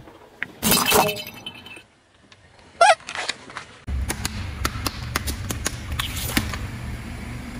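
A car tyre rolling onto plastic pipe-elbow pieces, which crack and crunch loudly about half a second in, followed by a short squeak near three seconds. After a cut about four seconds in, the tyre rolls over a row of water balloons that burst one after another with sharp pops and splashing over a low tyre rumble.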